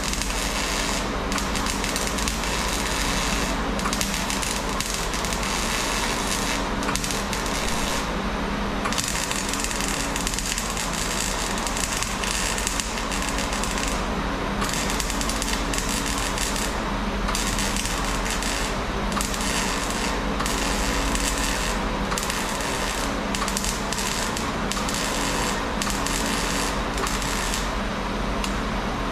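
MIG welder crackling as a bead is run along a car's rocker panel seam, with a few brief breaks where the trigger is let off. A steady low hum runs underneath.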